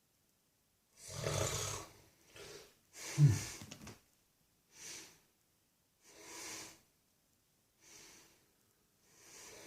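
An old man snoring in his sleep: two loud snores in the first few seconds, the second with a sharp snort at its peak, then softer, shorter breaths about every second and a half.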